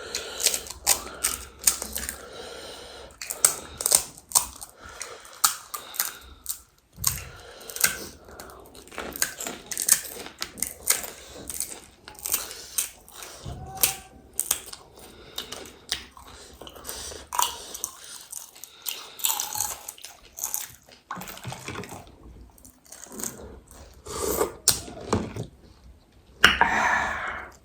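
Crisp pani puri shells crunching and being chewed close to the microphone: a dense, irregular run of sharp crackles and clicks.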